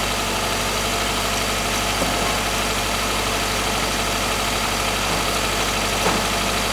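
2012 Subaru Forester engine running steadily while hot, held so as to bring out its rattle on acceleration, which the mechanic ties to pinging from carbon deposits or overheated fuel. A faint tick about two seconds in and again near six seconds.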